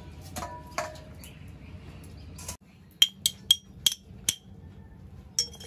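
Kitchen utensils clinking: a few dull knocks, then a quick run of five sharp clinks with a high ring and one more near the end.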